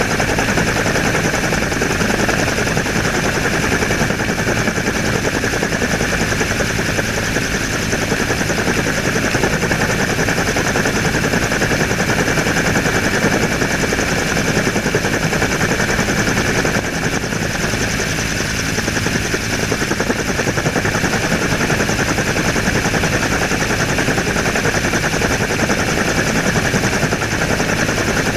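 Helicopter in flight, heard from on board: rotor blades chopping in a rapid, continuous pulse over the engine, with a steady high whine.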